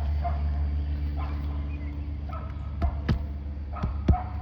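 A dog barking repeatedly over a steady low rumble. Near the end come a few sharp knocks or cracks, about four in just over a second.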